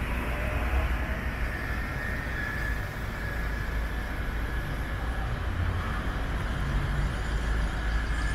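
Outdoor street ambience: a steady rumble of vehicle traffic with a faint, thin whine running through it.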